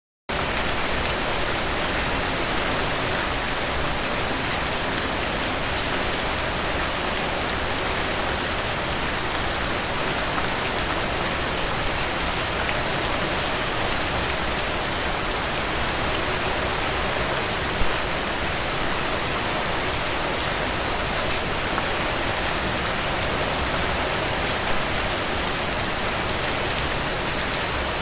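Heavy rain falling steadily on a surface, a dense even hiss of many drops that starts abruptly.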